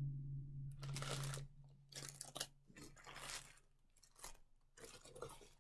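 Clear plastic bag crinkling and rustling in irregular bursts as it is handled, over a low steady hum that fades out about a second and a half in.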